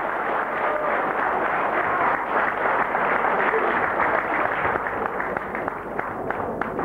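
An audience applauding, thinning near the end to a few last separate claps.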